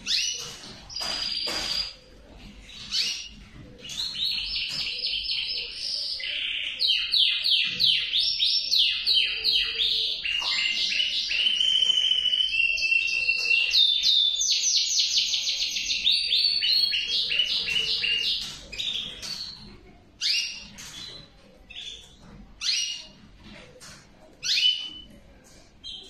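Male canary singing: a long song of fast trills and rapidly repeated notes that runs for about fifteen seconds, with short phrases before it and scattered short chirps after it.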